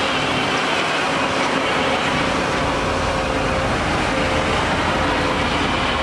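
Heavy diesel engines running steadily as a dump truck tips dirt from its raised bed, with a crawler bulldozer working nearby. The deep rumble grows fuller about two seconds in.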